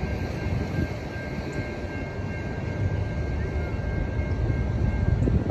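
Norfolk Southern freight train led by AC44C6M locomotive 4607, approaching in the distance: a low, uneven rumble with faint steady high-pitched tones above it.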